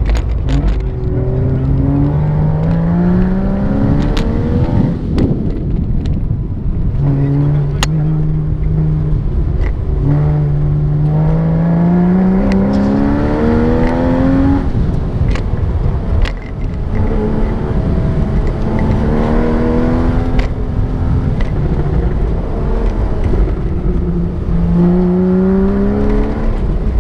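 Porsche engine heard from inside the cabin during an autocross run, repeatedly accelerating with its pitch climbing for several seconds, then dropping back sharply as the driver lifts or shifts, about four times. A few short clicks or knocks sound along the way.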